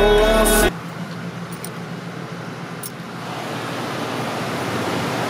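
Background music cuts off abruptly under a second in. It leaves the steady noise of a car idling and creeping forward in a toll-booth lane, with a couple of faint clicks. The traffic noise grows slowly louder toward the end.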